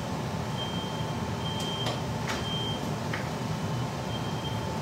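Household smoke alarm sounding, set off by kitchen smoke: a high-pitched beep that comes and goes in stretches of uneven length, over a steady low rumble, with a few brief knocks in the middle.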